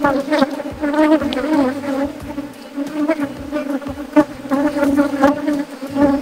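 A mass of honeybees buzzing around an open wooden hive, a steady hum that wavers as single bees fly close. A few short sharp knocks and scrapes of a metal hive tool on the wooden frames come through it, the loudest about four seconds in.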